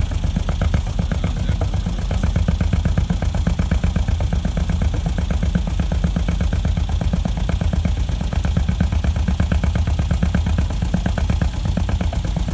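Volvo Penta MB10A single-cylinder inboard engine running a little above idle, with a steady, rapid putting beat.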